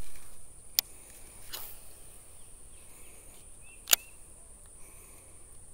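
Steady high-pitched insect buzz in the creek-side trees, with two sharp clicks from the baitcasting reel being handled, one about a second in and a louder one near four seconds in.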